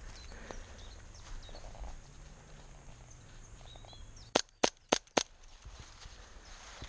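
Airsoft gun firing four sharp shots in quick succession, about a quarter second apart, a little past the middle. Faint bird chirps are heard before them.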